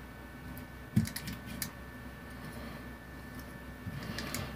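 A few light clicks and taps from a spring-loaded metal PCB holder and small circuit boards being handled and set down on a workbench mat, with one sharper knock about a second in.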